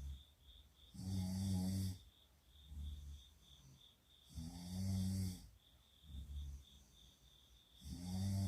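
Girls snoring in their sleep: a loud, rasping snore about every three and a half seconds, with quieter snores in between.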